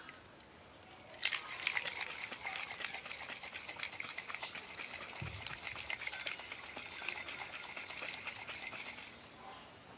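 Kulukki sarbath of water, ice, lime and sabja seeds being shaken hard in a glass capped with a steel tumbler: fast, continuous sloshing and rattling. It starts about a second in and stops about a second before the end.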